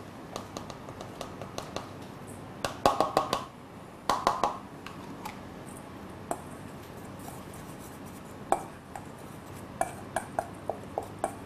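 Wire whisk and spatula clinking and scraping against stainless-steel mixing bowls, with two short runs of rapid metallic taps about three and four seconds in and scattered light clicks after.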